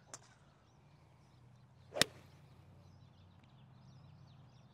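Golf iron swung through and striking a ball off a driving-range mat: a short swish into one sharp crack about two seconds in.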